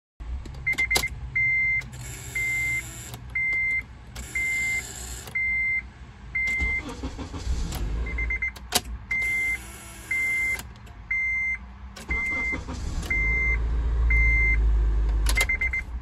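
Honda's ignition key turned again and again, giving stretches of electrical buzzing from a failing ignition starter switch that isn't making clean contact, with a few sharp clicks. A dashboard warning chime beeps about once a second throughout.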